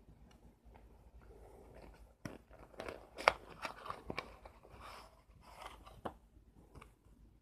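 Small cardboard box being opened by hand, with a run of crackles and snaps from the flap and packaging. The loudest is a sharp snap a little over three seconds in, and the crackling dies away about six seconds in.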